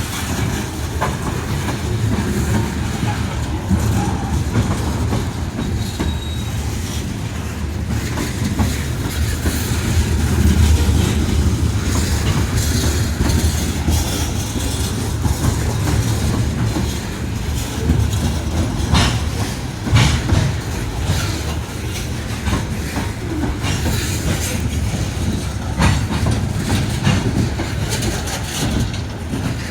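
Loaded coal train's hopper cars rolling past with a steady low rumble, the wheels clacking over rail joints, with a few sharper knocks.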